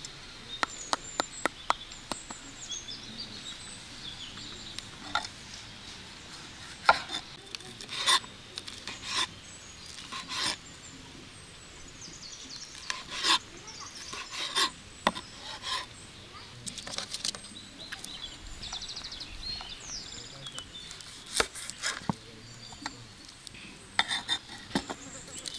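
Food preparation: irregular knocks and short scrapes of kitchen utensils, with small birds chirping in the background.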